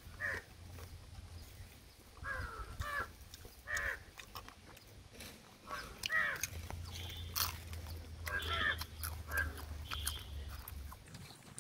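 Several short animal calls in the background over the crunching and chewing of cooked crab shell. A low hum runs through the second half.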